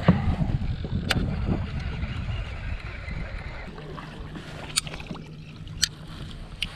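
Wind and water noise around a small fishing boat on choppy water, with four sharp clicks. A low steady hum starts about halfway through and runs to near the end.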